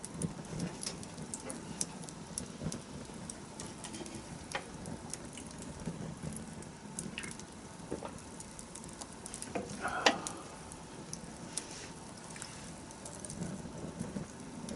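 Wood campfire burning, with scattered sharp crackles and snaps over a soft steady hiss; one louder pop about ten seconds in.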